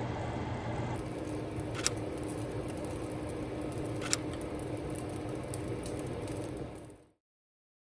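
Steady rain ambience with two sharp clicks, about two and four seconds in, fading out to silence near the end.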